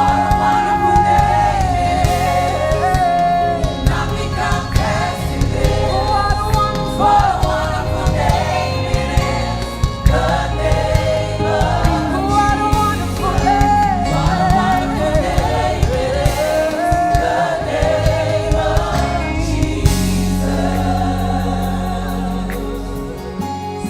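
Live gospel worship music: a choir of singers over a full band accompaniment. The voices drop away about 20 seconds in, leaving a held chord from the band.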